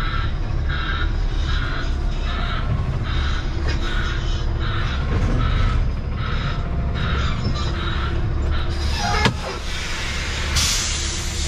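Diesel semi-truck running while reversing, with a backup alarm beeping about twice a second. The beeping stops, a sharp click follows, and near the end comes a short burst of air hiss, typical of the truck's air brakes being set once it is parked at the dock.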